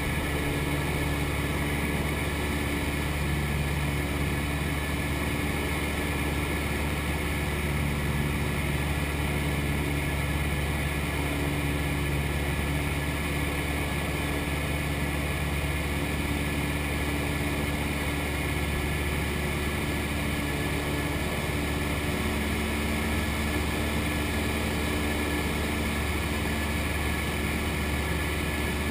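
Cessna 172's piston engine and propeller droning steadily, heard from inside the cabin.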